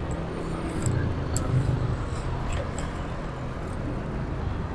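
Motorcycle engine running steadily while riding, with a low hum under an even rush of noise.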